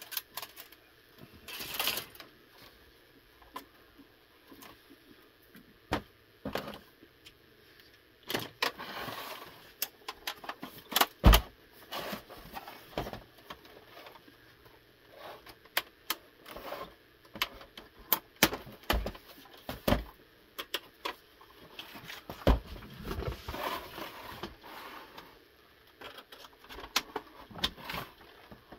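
Irregular clicks, knocks and scrapes of the plastic and metal parts of an Xbox 360 being handled and pried during disassembly, with one sharp knock about eleven seconds in.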